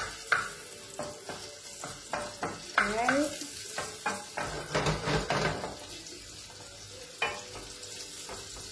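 Pancetta sizzling in butter in a frying pan, with a run of sharp knocks and scrapes from stirring in the pan. The knocks thin out after about five seconds, leaving the steady sizzle.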